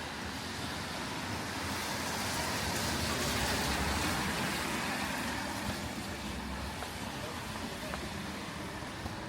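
A car passes on a wet street, its tyre hiss swelling to a peak about four seconds in and then fading, over a steady hiss of rain.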